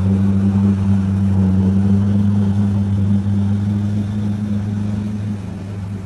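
A 4x4's engine running steadily under load as it wades through a river, with water churning around it. The drone slowly fades as the vehicle moves away.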